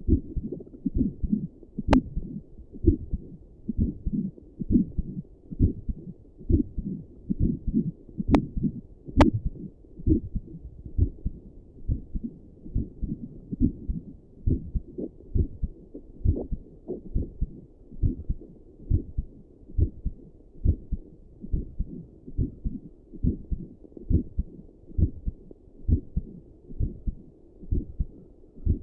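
Resting human heartbeat picked up by a stethoscope and a doppler together: steady, even beats at a little over one a second. There are a few sharp clicks in the first ten seconds.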